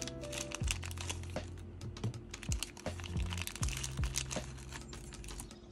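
Background music with a bass line and a beat, over the crinkling and clicking of small plastic zip bags being handled.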